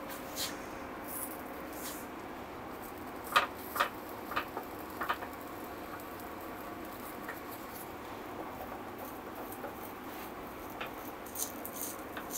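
Wooden spatula clicking and scraping against the rim of a nonstick frying pan a handful of times as it loosens the omelette's edge, with a faint steady hiss underneath.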